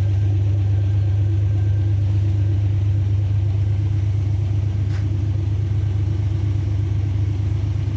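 A vehicle engine running steadily at an even speed, a deep unchanging hum with a faint click about five seconds in.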